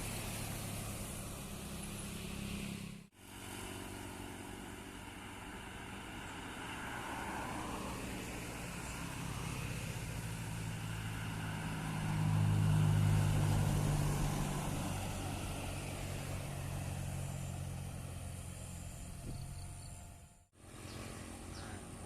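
Heavy vehicle's engine labouring up a steep hill road and passing close, growing louder to a peak about twelve to fourteen seconds in, then fading. The sound drops out sharply for a moment about three seconds in and again near the end.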